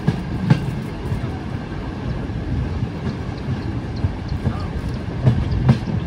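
A train running on the track with a steady low rumble. Wheels knock over rail joints once about half a second in and twice in quick succession near the end.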